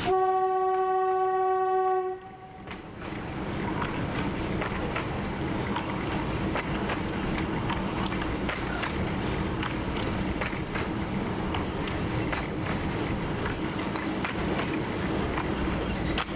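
TU7 narrow-gauge diesel locomotive sounding one horn blast of about two seconds on a single steady note that stops abruptly. It then runs on along the track, its engine drone steady under scattered clicks of the wheels over the rail joints.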